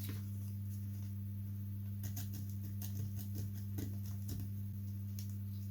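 A steady low hum, with faint scattered light clicks and scratches from about two seconds in, from small hand work on thin balsa wood stringers.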